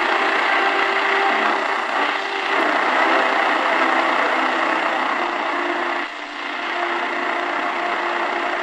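Medium-wave static and hiss from the Realistic DX-350 portable radio's speaker, tuned to a distant daytime AM station that is barely audible under the noise, with faint steady whistling tones. The level dips briefly about six seconds in.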